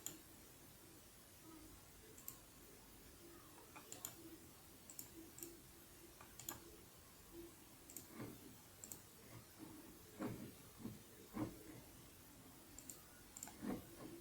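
Faint, irregular clicks and ticks, a little louder and closer together in the second half, over quiet room tone.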